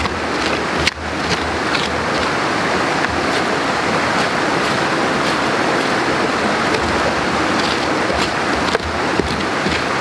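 Steady rushing water noise, with scattered sharp ticks over it.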